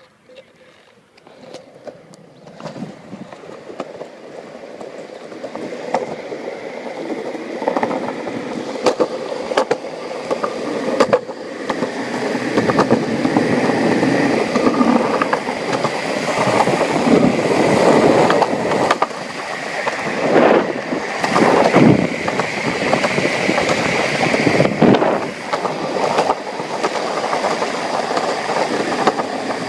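Longboard wheels rolling downhill on pavement, growing louder over the first dozen seconds as the board picks up speed, then a steady loud rolling noise with sharp clacks now and then.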